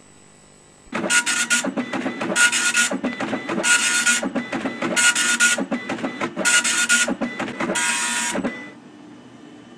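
Dot-matrix printer printing: six loud, rasping passes about one every 1.3 seconds with lighter rattling between them, stopping about eight and a half seconds in.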